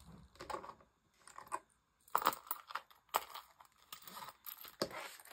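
Hands handling a leather zip coin purse on a table: a scattered run of light clicks and rustles, with small coin clinks, about one a second, a little louder about two and three seconds in and near the end.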